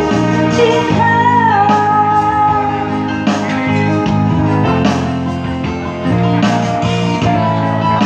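A voice singing a melody in long held notes over instrumental accompaniment with guitar and steady chords.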